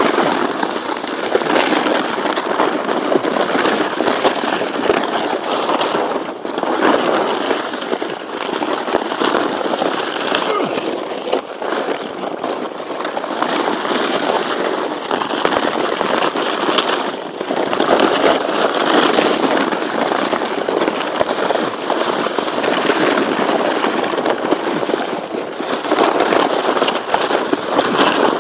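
Stingray sledge sliding fast down an icy, snow-covered lane: a continuous rough, crackling scrape of ice and snow under the sledge, surging and easing as it goes.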